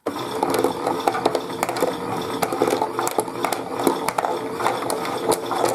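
Toy washing machine running, its small motor turning the drum with a steady hum and constant rattling and clicking.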